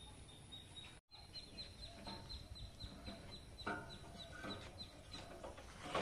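Faint clucking of chickens, with a rapid series of short, high chirps repeated about five times a second. The sound drops out completely for an instant about a second in.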